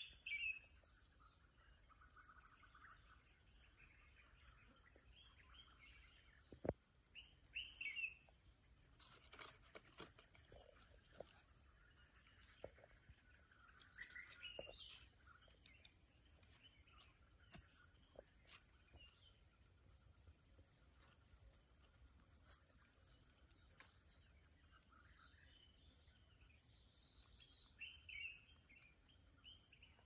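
A steady, high-pitched insect shrill that breaks off for about two seconds a third of the way in, then resumes. Birds chirp and call now and then over it.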